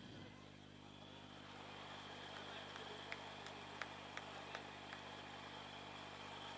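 Faint background noise: a steady low electrical hum under a hiss that swells about a second and a half in and fades near the end, with a run of about eight sharp clicks in the middle.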